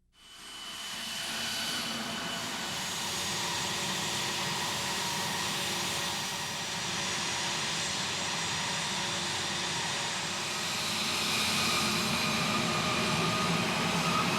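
Jet aircraft engine running, a dense rushing noise with several steady high whines, fading in at the start and growing somewhat louder near the end.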